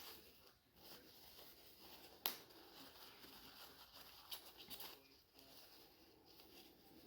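Quiet hand-handling noises of small parts being cleaned: one sharp click about two seconds in, then a cluster of lighter clicks and rustles a little after four seconds, over faint room tone.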